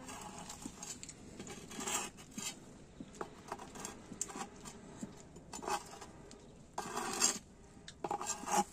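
Intermittent scraping and clinking of kitchen utensils against dishes, with a few short louder scrapes, the loudest near the end.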